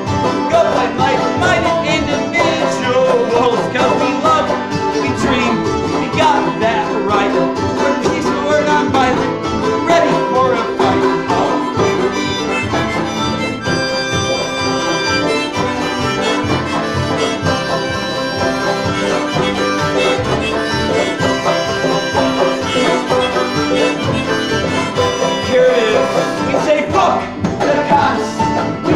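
Live acoustic band playing a bluegrass-style song on banjo, accordion and acoustic guitar, without a break.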